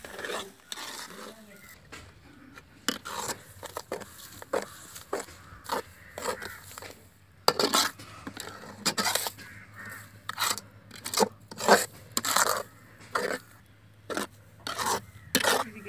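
Metal ladle stirring and scraping a thick beetroot halwa mixture in a large metal pot: a long run of irregular scrapes and knocks against the pan, busiest and loudest in the middle.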